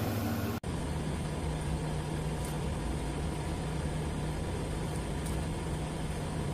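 A steady low mechanical hum over a constant hiss, cutting out for an instant about half a second in.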